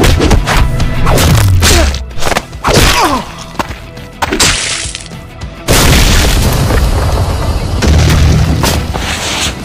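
Cartoon fight sound effects over background music: several quick punch impacts, then a sudden loud boom about six seconds in, followed by a long rush of noise.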